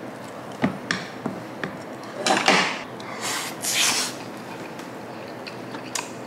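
A wooden spoon clicks a few times against a ceramic bowl while rice is mixed. Then come two breathy blows of air, about two and a half and three and a half seconds in, as someone blows on a spoonful of hot rice before eating it.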